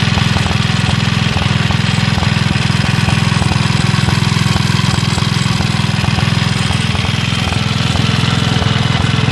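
Villiers Mark 12 stationary engine running steadily on butane gas through a mixer, with a fast, even beat.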